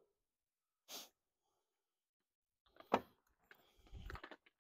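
Faint, sparse work noises: a short hissing rush about a second in, a light knock near three seconds, then faint scraping and tapping near the end, as a level is set against the timber beam.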